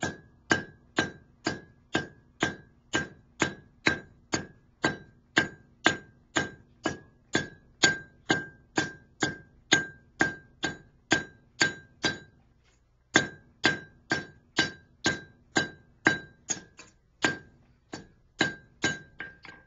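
Blacksmith's hand hammer striking steel on an anvil while forging a fishing gig, about two blows a second, each blow ringing. The blows stop briefly about twelve seconds in, then resume.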